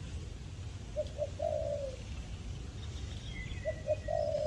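Spotted dove cooing twice, each phrase two short coos followed by a longer falling coo. A faint high falling whistle from another bird comes between the phrases, over a steady low rumble.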